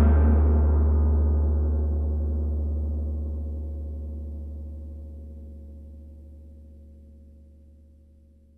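A gong ringing out after a single strike, with a deep hum under many higher tones. The higher tones fade first, and the ring dies away steadily to almost nothing by the end.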